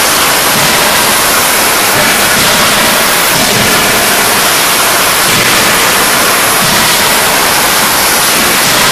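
Loud, steady machinery din of a forging shop's presses, an even hiss-like roar in which no single press blow stands out.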